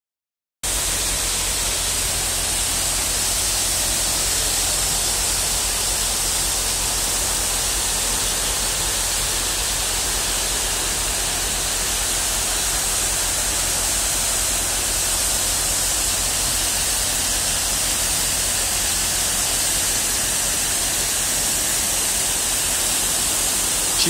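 Chegem waterfalls and the fast river at their foot: the steady, even rush of falling and churning water.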